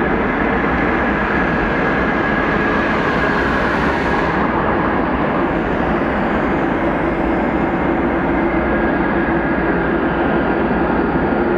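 Jet airliner engines running, a steady loud rush with faint whining tones.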